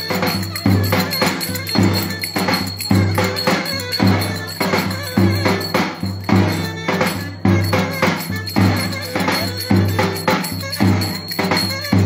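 Live Turkish folk dance music (oyun havası): a reed wind instrument plays a melody over a steady, strong drum beat.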